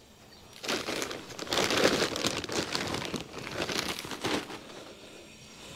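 Plastic bags crinkling and rustling as they are handled, starting about half a second in and fading out after about four and a half seconds.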